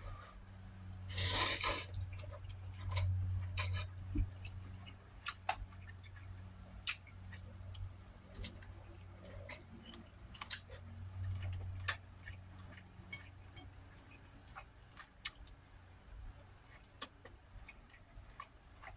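A man chewing food with scattered wet mouth clicks and smacks, with one louder breathy noise about a second in, over a steady low hum.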